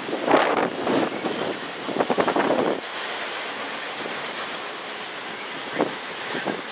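Freight train of enclosed autorack cars rolling past. In the first three seconds the wheels clack in loud clusters as the trucks pass, then the cars settle into a steadier rolling rattle, with a few more clacks near the end.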